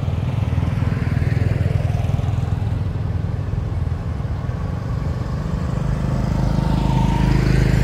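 Motorbike engine running steadily, a low rumble that grows louder near the end as a motorbike approaches on the road.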